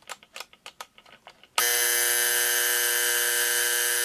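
JVC Videosphere flip clock being wound forward with a quick run of clicks, then about a second and a half in its alarm buzzer goes off, a loud, steady buzz showing that the repaired alarm works.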